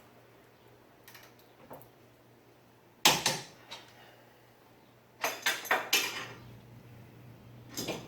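Hand tools clanking against metal: one sharp clank about three seconds in, a quick run of clanks about two seconds later, and another near the end, over a steady low hum.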